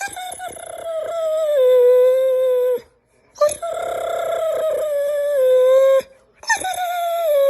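Dog howling: three long howls with short breaths between, each held and sliding slowly down in pitch.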